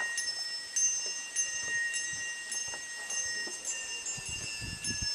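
Handbells struck over and over, about twice a second, their high tones ringing on, over a musical saw holding one long note that slowly slides down in pitch.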